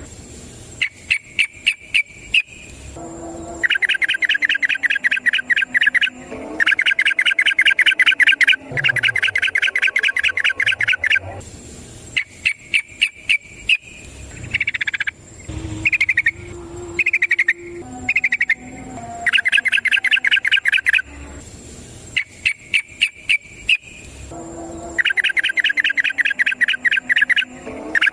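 Yellow-vented bulbul (trucukan) singing its long rapid 'ropel' song: bouts of fast rattling, evenly repeated notes, each two to three seconds long, separated by short pauses. In the middle come a few slower, separate slurred notes. A faint steady high insect-like tone runs underneath.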